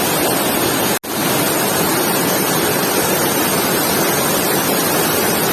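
Steady, loud rushing of a waterfall close to the microphone, cutting out for an instant about a second in.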